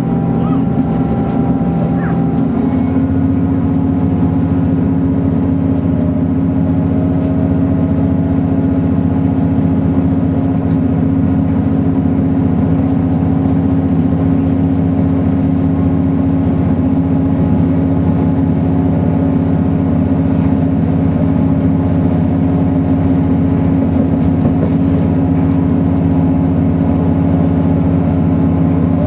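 Diesel passenger train heard from inside the carriage: a steady low engine drone with running noise.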